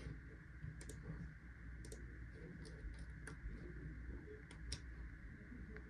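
Faint, irregularly spaced clicks of a computer mouse, about a dozen, over a steady low background hum.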